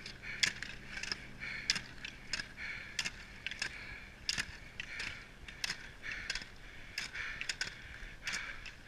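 Roller-ski poles striking asphalt, a sharp click at each pole plant, about one to two a second and unevenly spaced, over a steady rolling hiss from the roller-ski wheels on the road.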